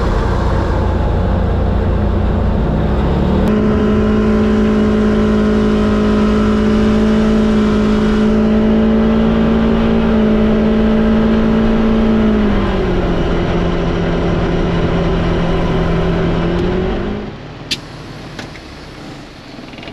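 Motor vehicle engine running under load. It climbs in revs about 3 seconds in and holds a steady pitch, drops to a lower steady pitch around two-thirds of the way through, then falls away sharply near the end, followed by a single click.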